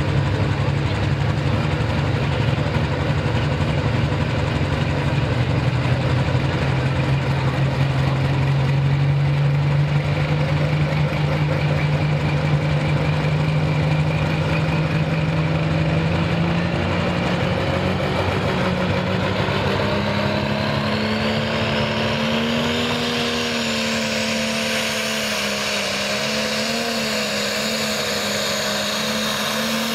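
Super stock pulling tractor's turbocharged diesel engine running steadily while hooked to the weight-transfer sled, then rising in pitch a bit over halfway through as the tractor pulls away, with a high turbocharger whine climbing steeply over it.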